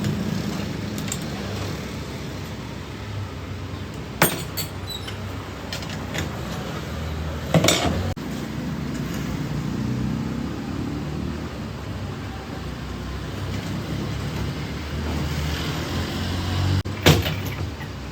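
Metal tools and parts clinking and knocking sharply three times, a few seconds apart, during work on a motorcycle's front fork, over a steady low rumble of traffic.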